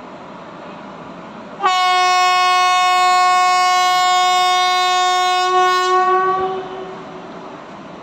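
Vijayawada-based WAP4 electric locomotive's horn sounding one long, steady blast of about five seconds, starting sharply and then dying away. Underneath it runs the steady noise of the departing train's coaches.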